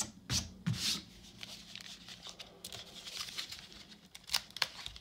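Baseball cards and a foil trading-card pack being handled on a table: a couple of soft knocks at the start, quiet rustling, then a few sharp crinkles of the pack wrapper near the end as it is gripped for opening.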